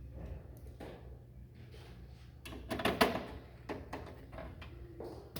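Computer parts being handled and fastened during assembly: scattered small clicks and knocks, with a louder clatter about three seconds in.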